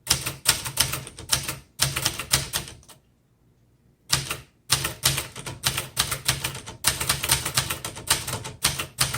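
Keys of a 1972 Webster XL-747 portable typewriter (made by Brother) being typed, the typebars striking the platen several times a second. A short burst of typing stops for about a second, then a longer steady run follows.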